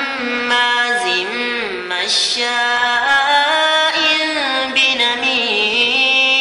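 Solo voice in Islamic devotional chant, sung in a melismatic style: long held notes that slide and waver through ornamented turns.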